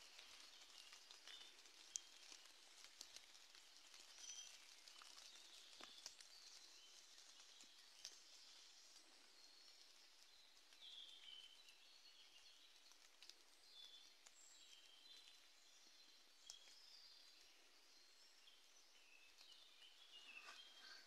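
Faint, scattered bird chirps and short calls over quiet forest ambience, with a few light clicks.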